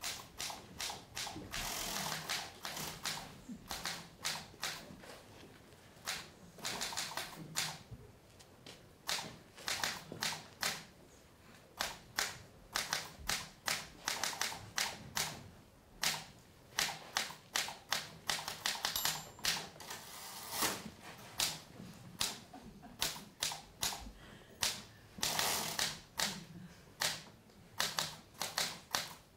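Typewriter keys clacking in quick, irregular runs of strokes, some strokes louder than others.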